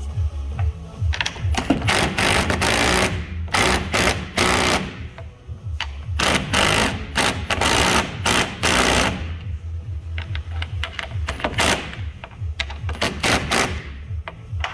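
A power tool running in several bursts of one to three seconds each, over background music with a steady low beat.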